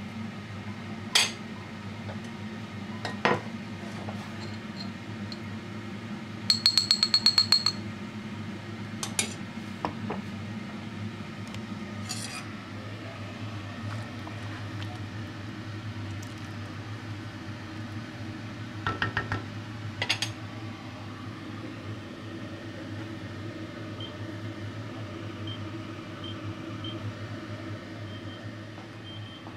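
Clinks and knocks of cookware on a stovetop as a pot of lentil stew is handled and stirred, including a quick run of about ten ringing clinks, over a steady low hum. Near the end, faint short beeps from the hob's touch controls as its timer is set.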